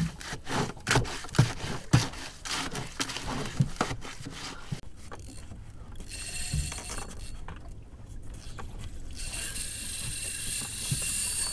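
Spinning reel drag buzzing as a hooked fish takes line, in a burst about six seconds in and again steadily from about nine seconds. Before it comes a run of sharp clicks and scrapes, from a wooden stick working chum in a metal bucket.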